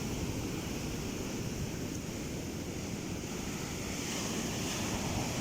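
Surf from a rough sea washing steadily onto the beach, with wind rumbling on the microphone.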